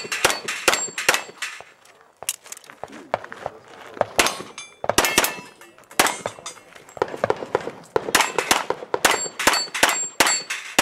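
A handgun fired in quick strings of shots, with steel plate targets ringing when hit. The shots come in clusters, with a brief lull about two seconds in.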